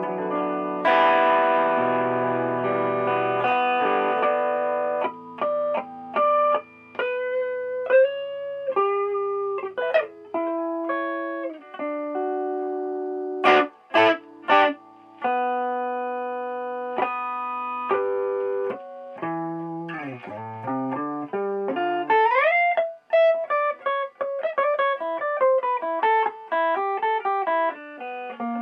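Electric guitar played through a pedal chain of a Keeley Compressor Mini, an EHX Big Muff Pi Nano and an EHX Soul Food overdrive. Sustained strummed chords for about five seconds give way to single-note lead lines with slides, with a few sharp scratchy strokes around the middle and a quick rising slide about three-quarters of the way through.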